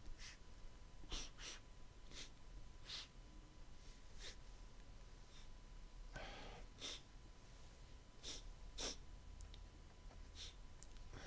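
A man sniffing through his nose, about a dozen short, faint sniffs with one longer sniff about six seconds in, drawing in a pinch of nasal snuff and its aroma.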